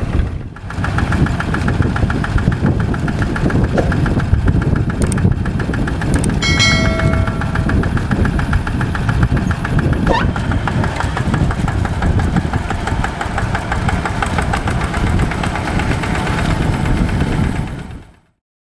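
Tractor engine running steadily under load, a dense low rumble with a pulsing mid-range note; it fades out just before the end.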